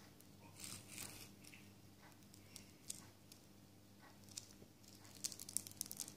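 A fingertip pressing star-shaped glitter sequins into a disc of soft white clay slime: faint crackles and small clicks, coming thick and fast near the end.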